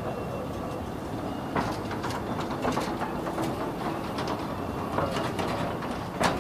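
Narrow-gauge passenger coaches rolling slowly past: a steady rumble of wheels on rail, with a few sharp metallic clanks, the loudest near the end.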